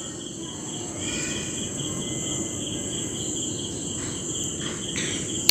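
Steady high-pitched insect trill in the background, with faint soft sounds of hands rolling and pinching dough on a stone countertop.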